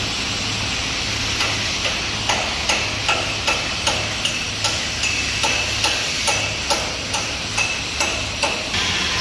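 K25 diesel pile hammer driving a spun concrete pile: a quick, even run of sharp ringing blows, about two and a half a second, starting about a second and a half in and stopping shortly before the end, over a steady low hum.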